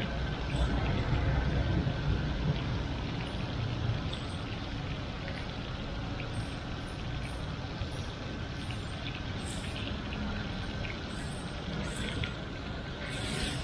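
Food sizzling in steel woks over a charcoal fire, a steady hiss over a low street rumble, with a few light clicks.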